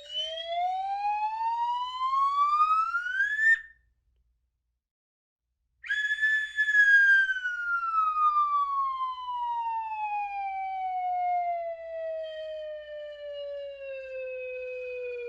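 A whistle with a gliding pitch: one long note climbs steadily for about three and a half seconds and cuts off, then after a two-second gap starts high again and slides slowly down for the rest of the time.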